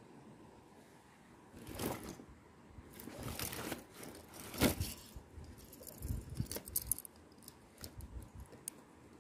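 Close handling noise as an angler deals with a freshly caught fish and his fishing tackle: rustling and scraping in several separate bouts, the sharpest about halfway through, then a quick run of small clicks and soft knocks.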